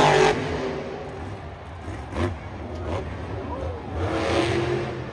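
Car engine sound, loudest at the start and dropping away within the first half second, then quieter.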